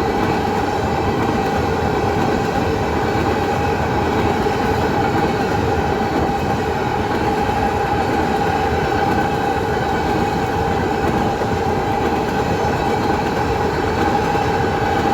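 Canadian National freight train rolling past close by: the steady, loud noise of the cars going by on the rails, with a steady high tone running over it.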